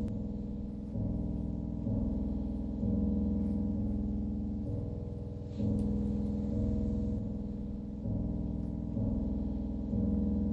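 Brooding background music: low keyboard notes, a new one struck about once a second and fading, in a phrase that repeats.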